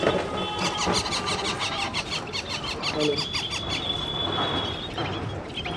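Small caged birds chirping: quick runs of high chirps, then one held high squeal about three seconds in.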